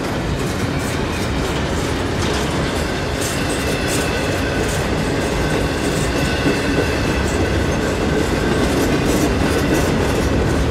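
Empty intermodal double-stack well cars of a freight train rolling past, with a steady rumble and wheels clicking over the rail joints. A faint high whine runs through the middle.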